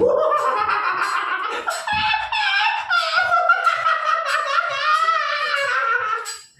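A person's voice making a long, high-pitched, wavering silly noise that slowly slides lower and then cuts off just before the end.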